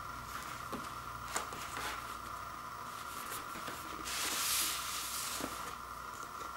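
An LP in its black inner sleeve being handled and slid out of a cardboard gatefold jacket: a few light handling clicks, then a soft scrape lasting about a second just past the middle as the sleeve slides out. A steady hiss runs underneath.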